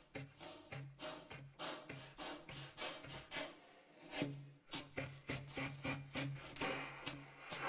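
Contemporary chamber music: a rapid, uneven series of short noisy strokes, like rubbing or scraping on an instrument, over a low note that keeps pulsing on and off.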